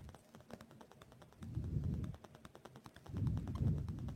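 Close handling sounds of hand needlework: two soft rustling stretches as the needle and thread are worked through the cloth, over a run of small clicks.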